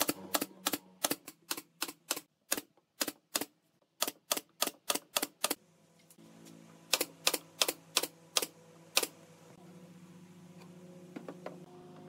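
Pneumatic nail gun firing brads into pine slats in quick succession, about three sharp shots a second for the first five seconds or so, then a pause and five more shots. A steady low hum runs underneath and grows stronger after the shots stop.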